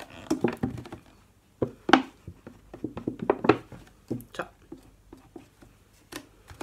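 Empty plastic soda bottle being handled and marked: irregular crackles, clicks and taps as the thin plastic is pressed and turned and a marker goes over the lines on it, densest about two to four seconds in.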